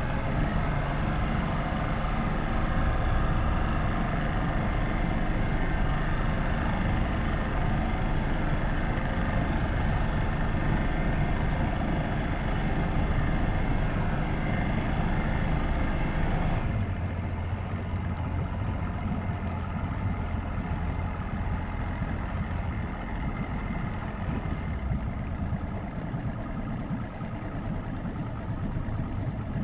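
Boat motor running steadily. About halfway through it gets a little quieter, with less high-end noise and a stronger low hum, as if throttled back.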